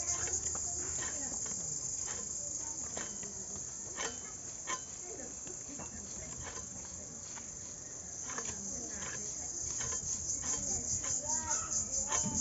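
A high, pulsing insect trill runs throughout, fading somewhat midway and rising again near the end. Over it come scattered sharp taps and scrapes of hilsa being scaled and cut on a boti blade, a louder pair about four seconds in.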